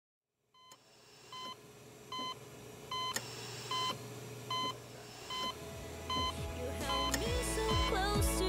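Electronic medical monitor beeping steadily, one short high beep about every 0.8 seconds, starting out of silence. Music swells in under it in the last second or two.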